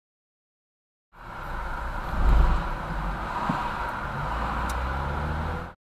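Road and engine noise heard inside a moving car's cabin, a steady low rumble with a brief louder low swell about a second after it starts. It cuts off suddenly near the end.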